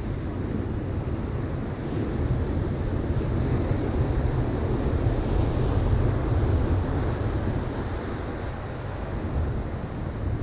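Ocean surf breaking on a sandy beach: a steady rush of waves that grows louder about two seconds in and eases off again after about seven seconds.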